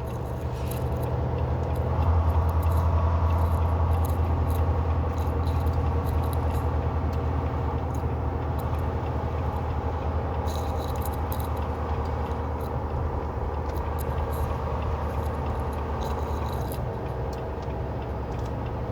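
Semi truck's diesel engine running under way, heard from inside the cab as a steady low drone. It gets louder about two seconds in and eases off near the end, with light cab rattles scattered throughout.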